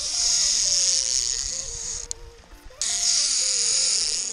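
Fishing reel's drag buzzing as a hooked sailfish strips line off the spool, nearly down to the backing; it stops about two seconds in and starts again less than a second later. Background music plays underneath.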